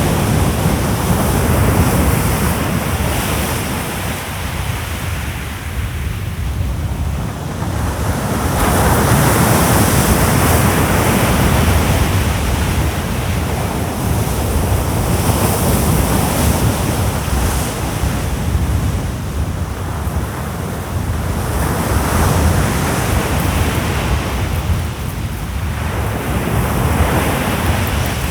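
Sea surf breaking and washing up the beach, the noise swelling and fading about every six seconds, with wind rumbling on the microphone.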